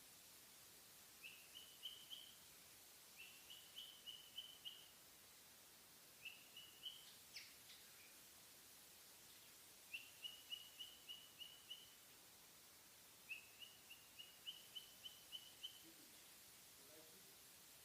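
Cockatiel chirping faintly in five short phrases, each a quick run of high notes with a rising start, a few seconds apart. A faint click sounds about seven seconds in.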